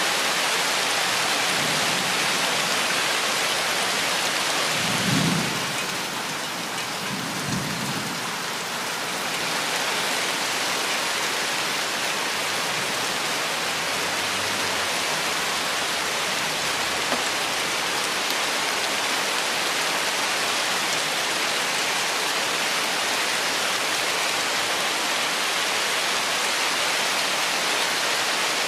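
Steady heavy rain falling on forest foliage, with low rumbles of thunder about five and eight seconds in.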